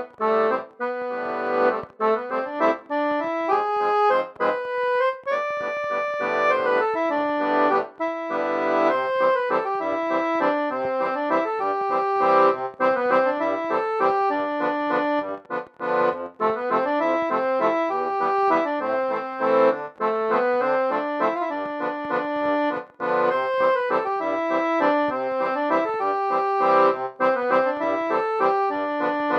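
Instrumental music: a lively melody of quick, evenly paced notes over held chords, without singing.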